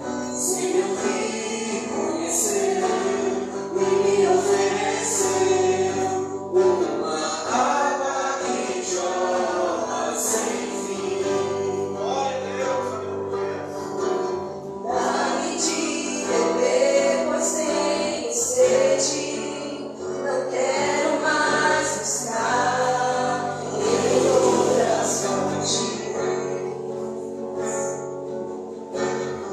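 Live Christian worship song: a church band playing while a group of voices sings.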